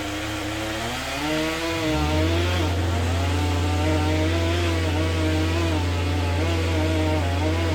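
Chainsaw running and cutting, its pitch wavering with the load. About two seconds in, a deeper engine note rises and then holds a steady drone under it.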